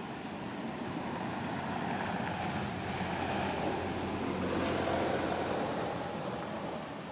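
A passing vehicle: a broad rushing noise that swells, is loudest about five seconds in, then fades, over a thin steady high-pitched tone.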